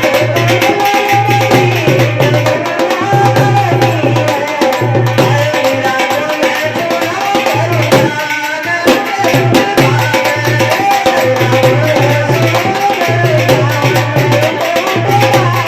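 Rajasthani bhajan music in an instrumental passage: a hand-drum rhythm over a pulsing bass note, with a melody line above. The bass and drums drop out briefly about eight seconds in.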